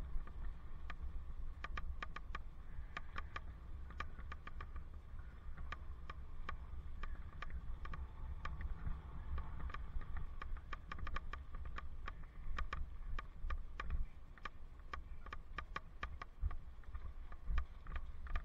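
Wind rumble on a helmet-mounted camera microphone while riding a bicycle, with many light, irregularly spaced clicks and ticks over it.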